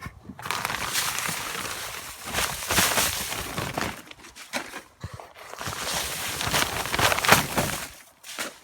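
Garden waste rustling and scraping as it is tipped and pushed into a compost bin, in irregular bursts with short pauses.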